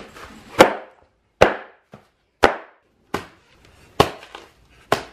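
Toy poppers going off one after another: about seven sharp cracks, roughly one a second.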